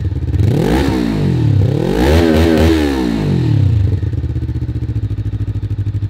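Valentino 400 (Taro GP One) motorcycle engine revved at a standstill: three throttle blips, the last two close together, pitch rising and falling each time. It drops back to a steady idle about four seconds in.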